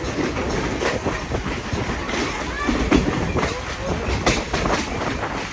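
Passenger train coach rolling along the track, heard from on board: a steady rumble with irregular clicking and clattering of wheels over the rails.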